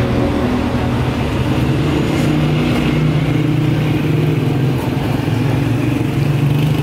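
A motor vehicle's engine running close by, steady and loud, its pitch shifting a little, over general street noise.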